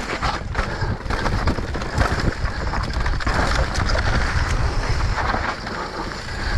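Mountain bike descending a rough dirt trail: wind rushing over the microphone with a steady low rumble, tyres rolling over loose dirt and rocks, and frequent sharp knocks and rattles from the bike over bumps.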